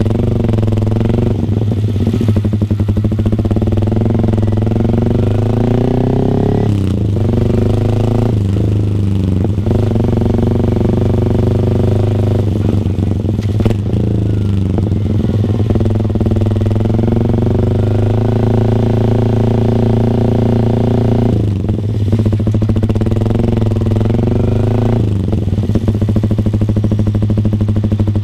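Yamaha R15 V3's 155 cc single-cylinder engine running through an aftermarket R9 GPX-SS full-system exhaust, with a steady low drone and repeated revs that rise and settle several times.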